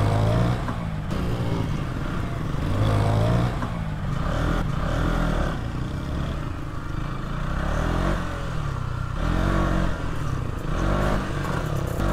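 KTM Duke 200's single-cylinder engine being ridden over a bumpy dirt trail, revs climbing and dropping again and again as the throttle is opened and closed.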